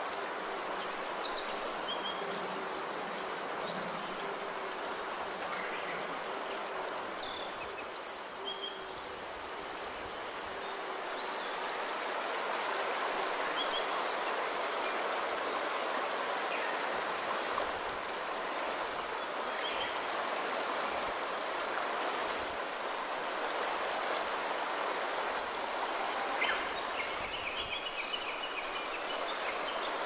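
A stream running with a steady rush of water, and birds chirping briefly every few seconds.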